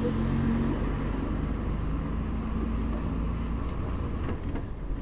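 Bus engine running with a steady low hum and road rumble during a ride, with a few faint ticks or rattles about four seconds in.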